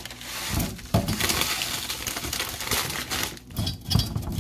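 Dry rice vermicelli crackling and snapping as blocks of it are pressed and broken by hand in a stainless steel skillet, with a few soft thumps.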